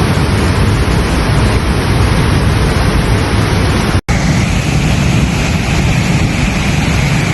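Loud, steady rush of a flooded, overflowing stream, its water running high and fast. The sound cuts out for an instant about four seconds in and comes back much the same.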